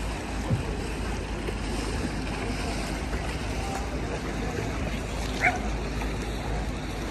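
Steady wash of canal water around a moving gondola, with a low rumble of wind on the microphone. One short high-pitched call rings out about five and a half seconds in.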